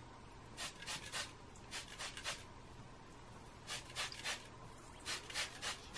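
Hand-held spray bottle misting hair: short hissing sprays in quick sets of three, four sets in all.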